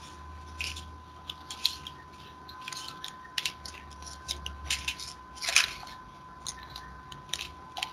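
Faint, scattered clicks and short rustles at an irregular pace, heard over a video call's audio, with a steady faint high whine and low hum underneath.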